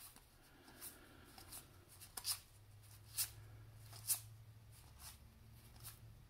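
Pro Set hockey trading cards being flipped one at a time off a stack in the hand, each card sliding off with a faint, short, crisp flick, about eight flicks at uneven intervals.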